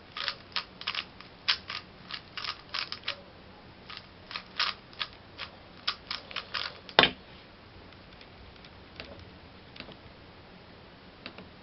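A 3x3 Rubik's cube being scrambled: its layers turn with quick, irregular plastic clicks, several a second, for about seven seconds, then one loud sharp click, after which only a few faint clicks follow.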